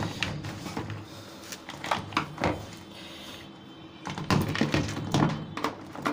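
Plastic knocks, clicks and rustling as a washing machine's replacement control circuit board is handled and set into its plastic control-panel housing. There are a few separate knocks in the first couple of seconds, then a busier run of knocks and rustling near the end.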